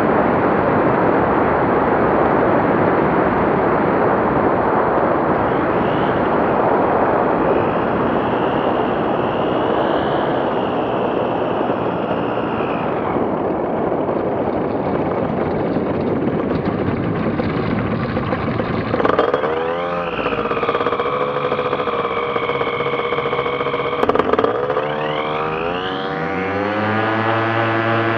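TrueLite ultralight aircraft's engine and propeller running in flight, at first half buried under a broad rushing noise of air. From about two-thirds of the way in, the engine's note comes through clearly and wavers twice. Near the end it climbs steadily as the throttle is opened.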